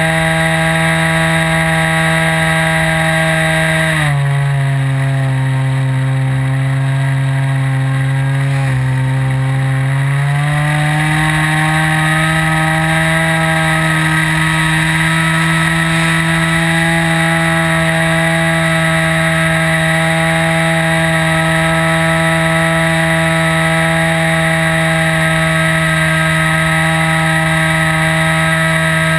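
O.S. 55 AX two-stroke glow engine and propeller of a World Models Ultimate 40S model plane running in flight, heard close up from onboard. About four seconds in it is throttled back to a lower steady note, then opens up again around ten seconds in and holds a steady higher pitch.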